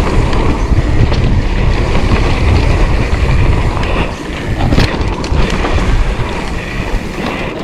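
Wind buffeting the microphone of a mountain bike descending a dirt trail, mixed with tyres on dirt and the bike rattling over bumps in short clicks. The low rumble eases about four seconds in.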